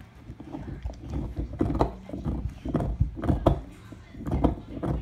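Pit bull gnawing on a deer antler: irregular clusters of hard clicks and scrapes of teeth on antler, getting louder after the first second.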